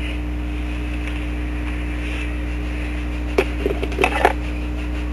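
Steady electrical mains hum, with a few brief clicks and rustles about three and a half to four seconds in.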